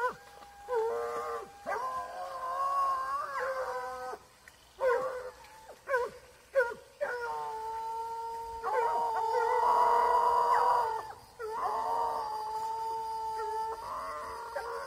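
American hunting hounds baying while hunting wild boar: long drawn-out howls from several dogs at different pitches, often overlapping, broken by short sharp yelps.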